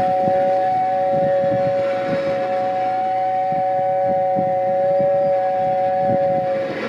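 Toy train's horn sounding one long, steady two-note chord that stops near the end, over the clicking and rumble of the train running on its track.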